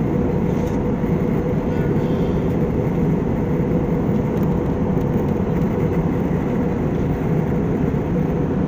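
Steady roar of a jet airliner in cruise flight, engine and airflow noise heard inside the cabin, even and unchanging, with a faint steady hum under it.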